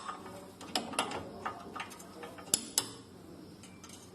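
Irregular sharp metal clicks and knocks of a wrench working the nut on a car's outer tie rod end to loosen it, with the loudest taps in the first three seconds.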